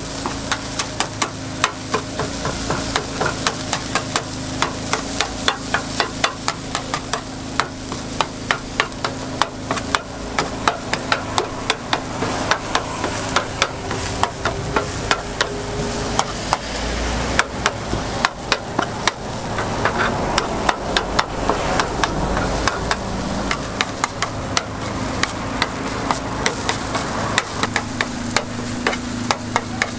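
Metal scraper tapping and scraping against a hot takoyaki griddle as the batter is cut along the mold's grooves, in quick regular clicks about two or three a second, over the sizzle of frying batter.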